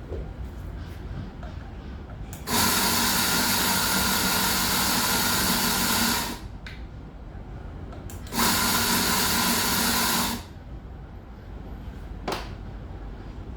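Eureka espresso grinder's motor running twice, a long burst then a shorter one, grinding coffee on demand with a steady whirring hum. A single short knock follows near the end.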